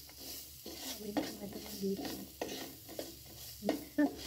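Chopped onions sizzling in hot oil in a nonstick pan, stirred with a wooden spatula that scrapes across the pan in short, irregular strokes.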